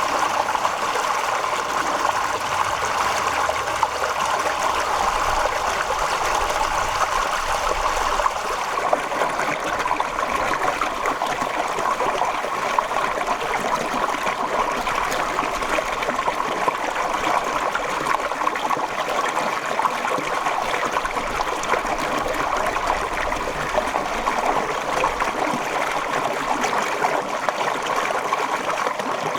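Water flowing and trickling steadily, an even rush that does not change.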